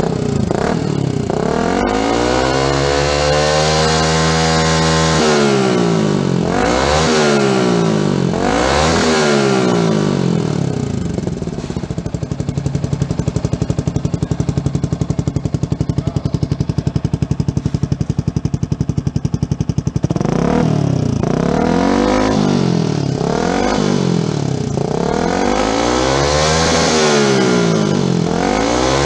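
Yamaha R15's single-cylinder four-stroke engine running through a Sakura aftermarket carbon-fibre muffler. It is revved: one held rev near the start, then several quick throttle blips. After that it settles to idle for about eight seconds with an even pulsing beat, and near the end comes a run of quick rev blips.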